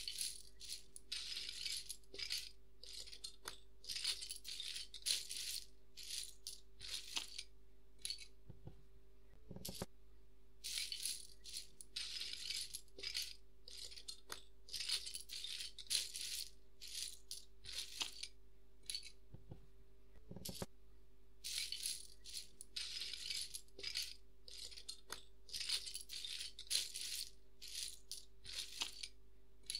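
Sped-up clicking and rattling of plastic Lego pieces being handled and fitted together, in quick irregular clusters over a steady low hum. The sound breaks with a click twice.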